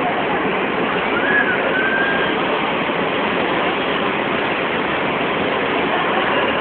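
Steady, dense din of a large crowd, with a short high tone a little over a second in.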